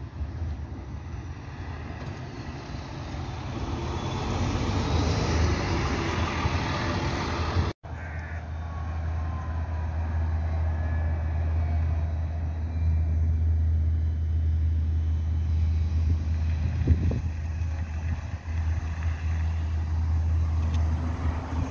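City buses pulling away and driving past, the noise swelling over the first several seconds. The sound breaks off for an instant about eight seconds in, then a steady low rumble carries on under the passing traffic.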